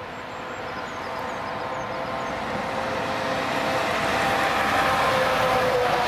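A train approaching along the track and passing close by, growing steadily louder, with a few steady tones over the rushing noise.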